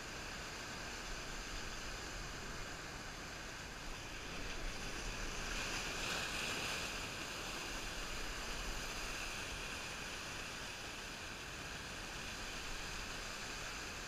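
Ocean surf washing over shoreline rocks: a steady hiss of churning water that swells louder for a few seconds about a third of the way in.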